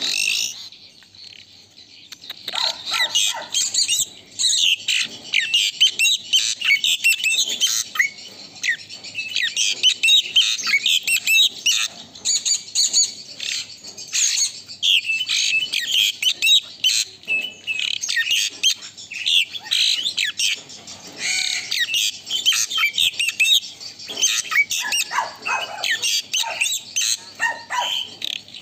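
Asian pied starling (jalak suren) in full song: a long, fast run of varied high chattering and whistled notes, broken by short pauses, with a quiet gap of about a second and a half just after the start.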